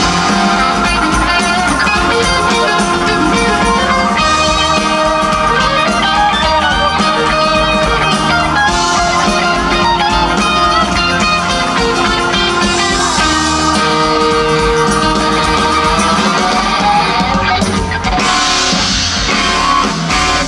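Live rock band playing, guitar to the fore over a drum kit and keyboards.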